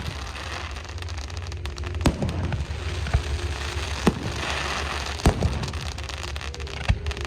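Fireworks going off: four sharp bangs a second or two apart over continuous crackling, with a steady low hum underneath.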